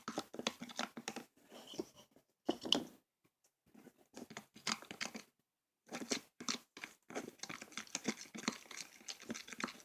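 Conditioner-and-baking-soda slime mixture being stirred in a bowl as it starts to clump: irregular scraping and clicking, with two short pauses.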